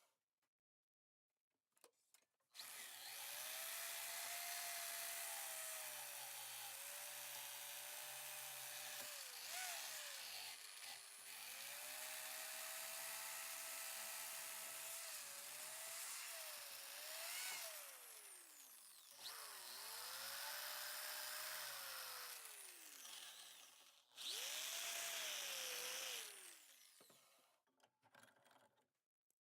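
Handheld electric power tool running and working against the metal of the pliers, with a harsh grinding noise over the motor's whine. The whine sags under load and winds down several times as the tool is switched off and on again.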